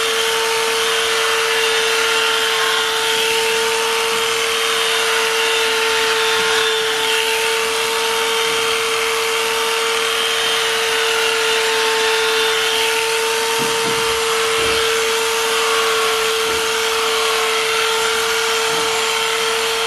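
Electric cattle clippers running with a steady, even hum, their blades shearing the long old hair from a Lakenvelder calf's coat.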